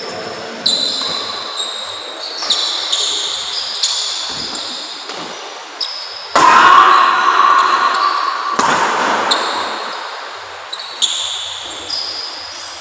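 Badminton doubles rally in a large hall: sharp racket strikes on the shuttlecock and squeaking shoes on the court, echoing off the walls. A much louder burst of noise comes about halfway through, and another about two seconds later.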